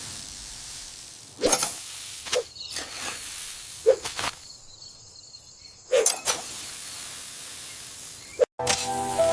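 Gusty wind: a steady hiss broken by about half a dozen short whooshing gusts. Music comes in near the end.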